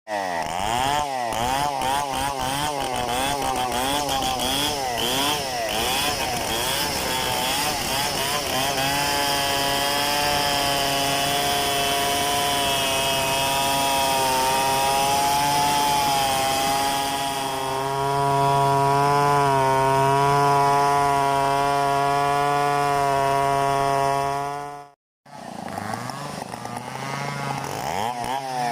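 Large two-stroke Stihl 720 chainsaw freehand-milling a log: it revs up and down at first, then is held at high revs under load through a long rip cut, its note wavering as the chain bites. Near the end the sound breaks off abruptly for a moment, then the saw is heard revving again.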